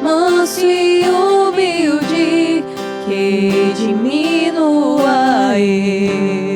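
Slow worship music: acoustic guitar strumming chords under a sung melody line that holds and glides between notes.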